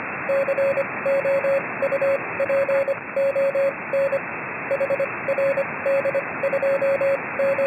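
Morse code (CW): a single mid-pitched beep tone keyed on and off in short groups of dots and dashes, over the steady hiss of radio static heard through a narrow receiver passband.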